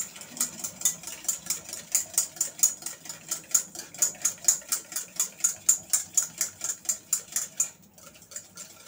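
Wire whisk beating curd in a stainless steel bowl, its wires clicking against the metal in an even rhythm of about four strokes a second. The strokes stop a second or so before the end.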